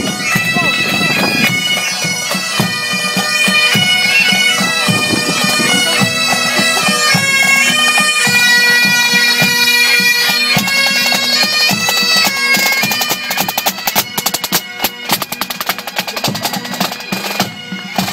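Bagpipes playing a melody over their steady drone. Rapid drumming joins in for the last third.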